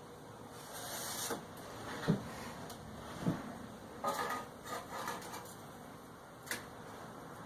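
Light knocks, clicks and scrapes of a steel sheet and hand tools being handled on a workbench while it is marked out, with two duller knocks about two and three seconds in.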